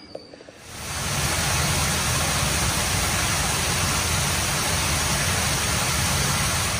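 Hot spring water pouring out of a Roman stone drain arch and splashing down a small iron-stained cascade: a steady rushing splash that fades in about a second in and fades out at the end.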